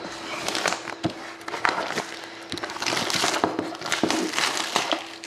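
Hands handling and opening a sealed paperboard trading-card box: irregular scrapes, taps and rustling of the cardboard, busiest a few seconds in.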